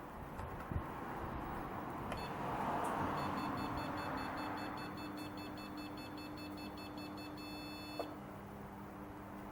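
Athletes Fitness AF430 treadmill console beeping in a rapid run for several seconds, with a steady low hum underneath. There is a click about a second in and another as the beeping stops.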